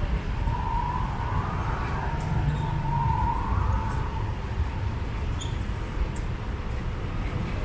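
An emergency-vehicle siren sounding, its pitch rising and falling, then fading out about four seconds in, over the steady rumble of street traffic.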